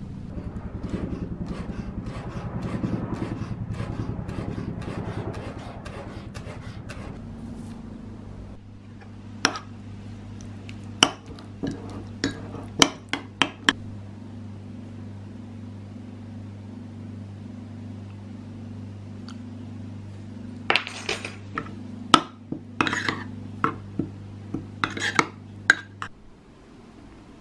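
A knife chopping mint leaves on a wooden cutting board with quick light taps, then a metal fork clinking sharply against a ceramic bowl and scraping it while stirring and spooning out a thick yogurt and dill sauce. A low steady hum runs underneath and stops near the end.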